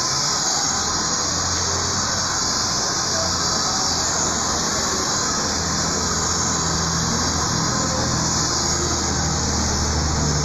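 Handheld hair dryer running steadily at close range during a blow-dry with a round brush: a constant rushing hiss over a low motor hum.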